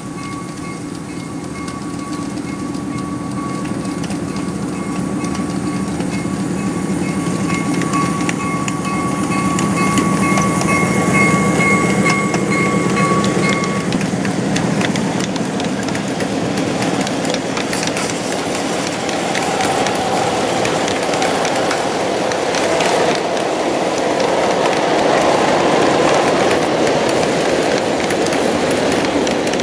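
1-inch-scale ride-on F7 diesel locomotive running past with a steady hum and a steady high tone. The tone stops about halfway through, and its string of freight cars rolls by, wheels clicking rapidly over the rail joints, growing louder.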